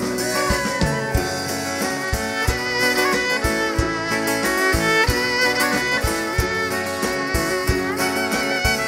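Live folk band playing an instrumental break without singing: a violin carries the melody over strummed acoustic guitar and a steady percussion beat.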